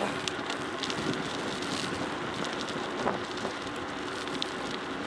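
Tyres rolling over the gravel and dirt of an unpaved forest road on a downhill run: a steady crunching rush with scattered small clicks and rattles, mixed with wind noise.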